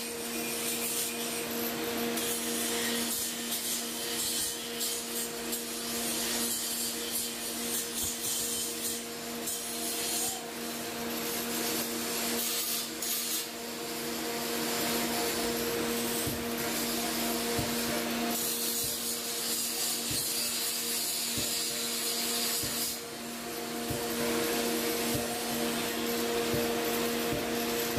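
Grinding machine running with its abrasive wheel rasping against steel. A steady machine hum sits under a gritty, high rasp that swells and eases as the work goes on.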